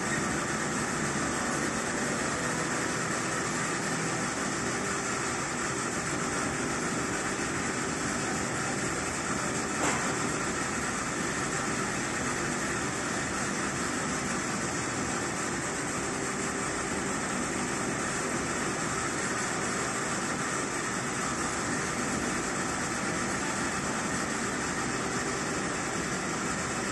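Steady, even background noise like a ventilation hum, with one faint click about ten seconds in.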